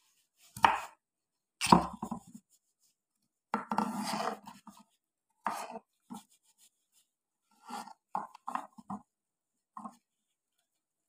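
A whole fish being handled and rubbed with a salt-and-turmeric spice mix by gloved hands. Irregular wet slaps and rubbing, with two sharp thumps in the first two seconds.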